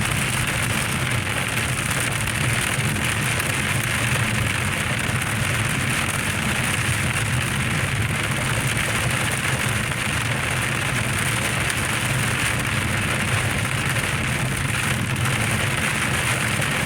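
Heavy summer-thunderstorm downpour: rain pouring steadily, with no break or change.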